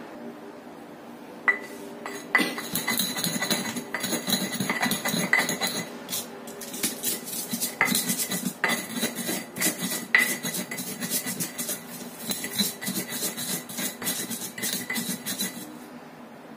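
Pestle pounding and grinding garlic cloves, peppercorns and salt in a stone mortar: many sharp, irregular knocks with a short ringing clink, mixed with scraping. It starts about a second and a half in and stops just before the end.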